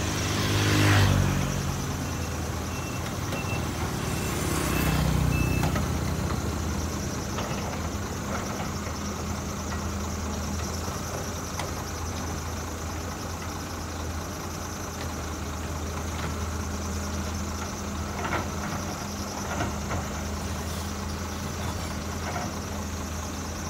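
Heavy diesel engines of a CAT excavator and a dump truck running at idle, with a louder rev that falls away about a second in and another swell around five seconds in. A few faint, evenly spaced high beeps sound between about two and five seconds in.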